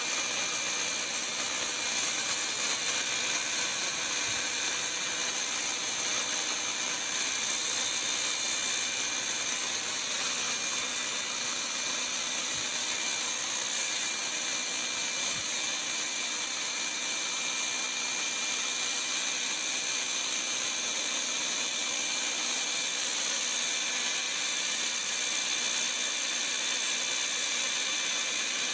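Bauer brushless rotary hammer running steadily without a break, a constant high-pitched whir with a rattle.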